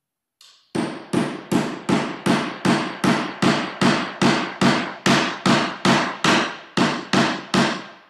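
A hammer striking in a steady rhythm, about nineteen blows at a little over two a second, starting just under a second in.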